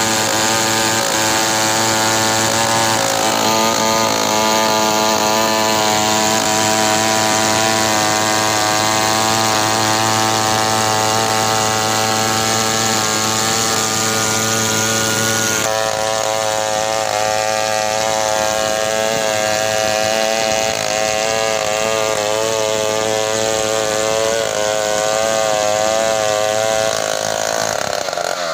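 Large two-stroke chainsaw running at high revs while ripping a log lengthwise into planks. The engine note holds steady at first, then wavers up and down as the chain bites into the wood, and drops away near the end.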